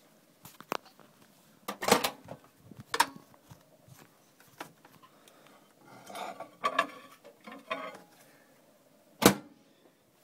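Scattered knocks and clacks of household objects being handled, with a rustle about six seconds in and one louder knock near the end.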